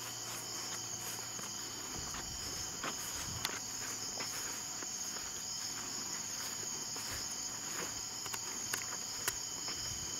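Steady high-pitched chorus of night insects, unbroken throughout, with a few faint taps here and there.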